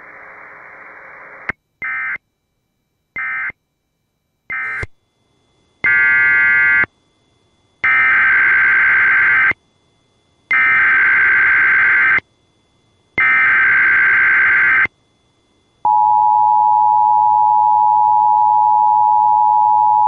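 Emergency Alert System broadcast tones: three short end-of-message data bursts about a second apart, then four longer SAME header data bursts for a Child Abduction Emergency alert. About 16 seconds in, the steady two-tone EAS attention signal begins.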